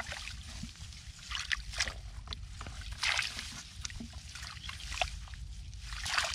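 Hands groping through shallow muddy water and mud while feeling for catfish, with irregular bursts of splashing and sloshing.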